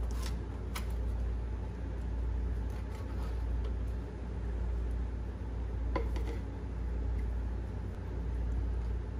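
A brush scrubbing old grease and crud from the inside of an engine block, in repeated strokes that swell and fade about once a second, with a couple of sharp clicks against the metal. A steady low hum runs underneath.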